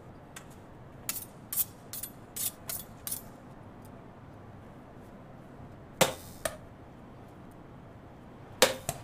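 Thrown kitchen knives striking table-tennis paddles: a quick run of about seven sharp clicks, then a pair of heavier thunks midway and another loud thunk with two smaller knocks near the end.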